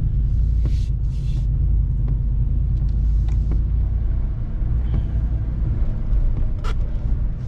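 A 2021 RAM 1500 TRX's supercharged 6.2-litre Hemi V8 and tyres giving a steady low rumble inside the cab while the truck drives on a wet road.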